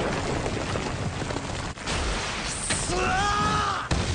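Animated battle sound effects: a dense, continuous rumble and crackle of an explosion and scattering debris, with a short wavering pitched cry or whine about three seconds in that cuts off suddenly.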